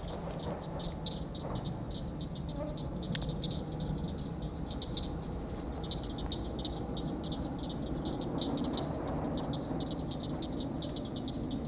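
Night chorus of frogs and insects: rapid high chirping calls repeating in clusters over a steady high drone. A low rumble runs underneath, and a single sharp click comes about three seconds in.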